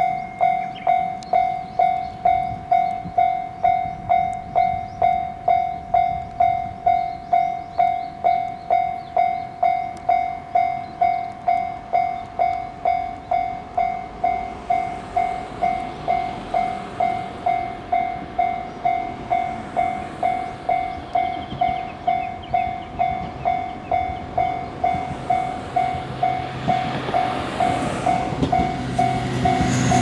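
Japanese level-crossing warning bell ringing steadily, about one and a half strokes a second, with the barrier down. Under it an approaching JR 103-series electric train's rumble grows from about halfway and is loudest at the very end as the train reaches the crossing.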